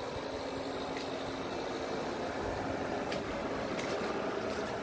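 Steady vehicle noise: a low rumble with a faint steady hum and a few light clicks.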